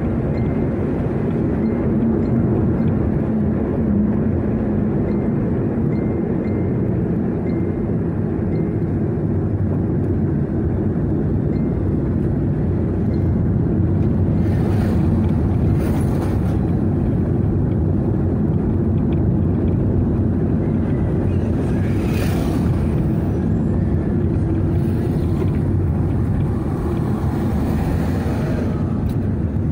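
Steady road and engine noise of a moving car heard from inside the cabin, with a few brief swells around the middle as oncoming vehicles pass.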